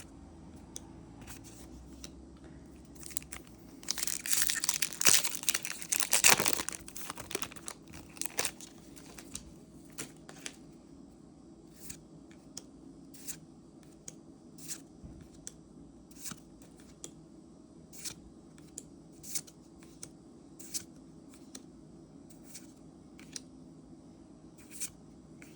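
Foil booster pack wrapper torn open and crinkled, loudest about four to seven seconds in. After that, a steady run of short crisp snaps, about one a second, as trading cards are flicked through one by one.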